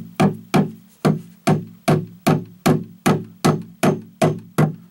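Hammer driving a cable staple into a hard wooden stud: a steady run of quick blows, about three a second, each with a short ringing tail.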